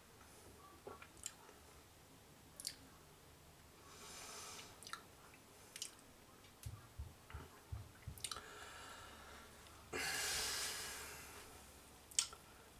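Quiet mouth and breathing sounds of someone tasting a sip of beer: small lip and tongue clicks, soft breaths, and a longer, louder breath about ten seconds in.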